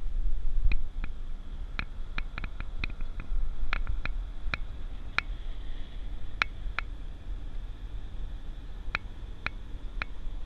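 Wind buffeting a GoPro's microphone as a low rumble, with irregular sharp clicks from the hand-held camera being handled at arm's length.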